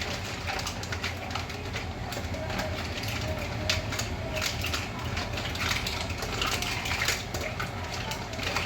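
Cooking clatter from a stovetop pot of mussels being worked: irregular small clicks and clinks of shells and utensil, over a steady low hum.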